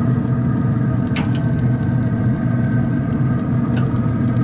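Steady mechanical hum, with two light clicks of metal tongs against the smoker's grill grate, about a second in and again near the end.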